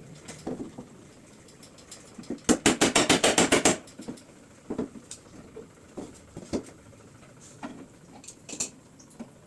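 Scattered sharp knocks and clicks, with a rapid even run of about a dozen loud knocks about two and a half seconds in.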